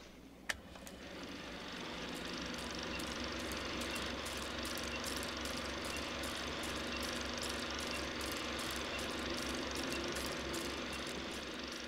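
Film projector running with old film playing through it: a steady mechanical whir with a rapid low flutter, scattered crackle and pops, and one sharp click about half a second in. A faint short tick sounds about once a second, in step with a countdown leader.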